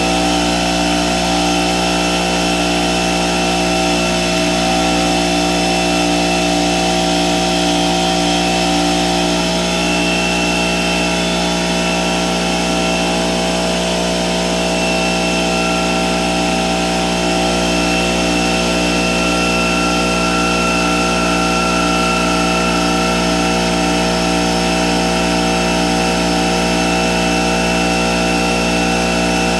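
Pancake air compressor's electric motor and piston pump running steadily, a loud, even machine drone with a fast pulsing beat.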